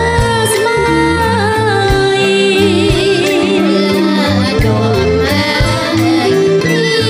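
A woman singing a Khmer song in the Lakhaon Basak opera style into a microphone, her voice wavering with vibrato, over a live band with a drum kit and bass.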